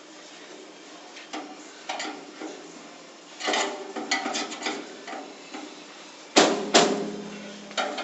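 A pry bar is being forced against the door edge of a Modul-Safe van safety locker in a break-in attempt. Metal scrapes and clicks, then a run of knocks. Two loud metallic clangs come about half a second apart, and the locker rings on after them before a last knock near the end.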